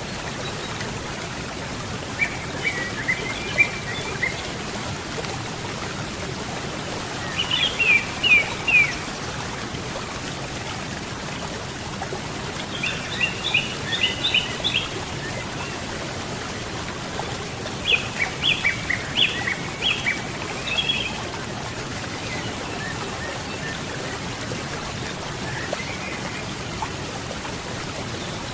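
Steady rushing of a river or waterfall, with a songbird singing short phrases of quick high chirps four times over it.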